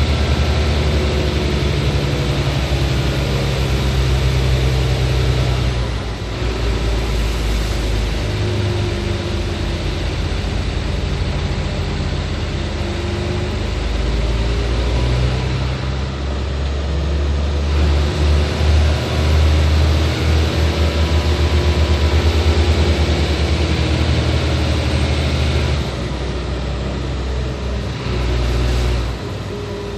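Hino 500 truck's diesel engine running under way, its engine speed rising and falling, with a deep rumble throughout.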